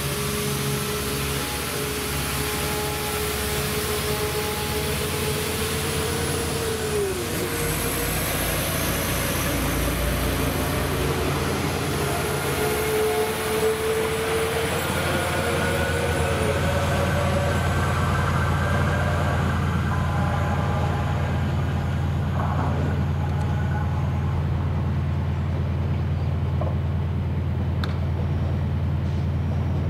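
Diesel train engine running at a station, a steady low hum with whining tones above it; one whine drops in pitch about seven seconds in, and the low hum grows fuller from about halfway.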